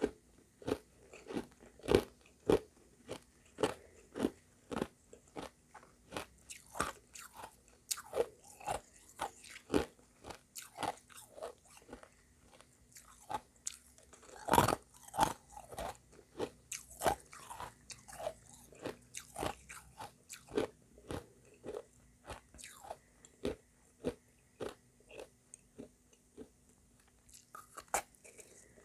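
A person biting and chewing refrozen shaved ice mixed with crushed ice close to the microphone: a steady run of hard crunches, about one to two a second, with a louder cluster about halfway through.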